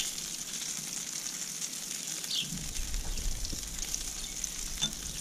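Meat and vegetables sizzling on a hot gas grill as oil is brushed onto them: a steady crackling hiss.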